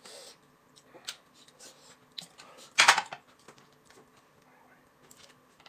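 Eating at a table: soft clicks of chopsticks and dumplings against a plate, with one short, loud rush of noise about three seconds in.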